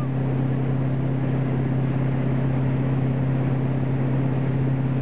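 Vehicle engine running at a steady drone, a constant low hum under an even rushing noise, with no change in pitch or level.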